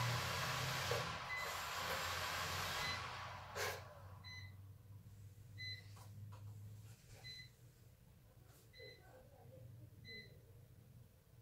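A short electronic beep repeating about every second and a half from a toy quadcopter drone and its remote. For the first few seconds a steady hiss runs under the beeps, ending with a click.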